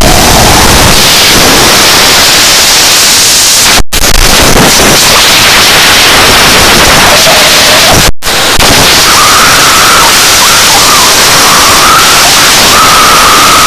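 Vacuum cleaner sucking air with the microphone pushed into it: a very loud, distorted rushing noise. It cuts out briefly twice, about 4 and 8 seconds in, and from about 9 seconds a wavering high tone rides on top of the rush.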